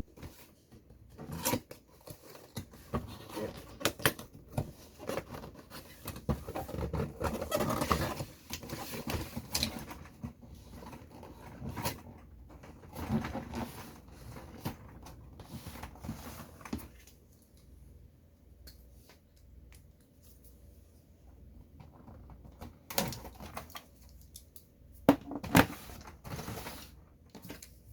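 Handling noises of unboxing: rustling packaging and irregular clicks and knocks of plastic parts, busy for a while, then fewer, with a couple of sharp clicks near the end.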